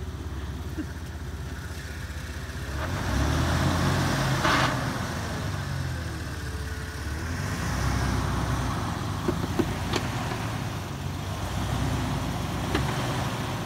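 Jeep Wrangler engine pulling in low gear as it crawls up a clay pile, the revs rising about three seconds in and again near the middle. A few sharp knocks and clicks sound over it.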